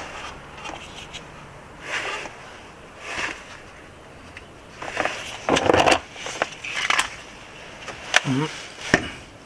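Intermittent clicks, clinks and scrapes of hand tools and car parts being handled during under-car repair work, loudest about five to six seconds in, with a short vocal murmur near the end.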